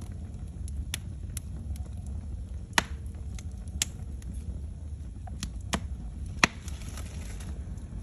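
Cardboard cereal box and a log burning in a fireplace: irregular sharp pops and crackles over a steady low rumble of flame. The two loudest pops come about three and a half seconds apart, the second followed by a brief hiss.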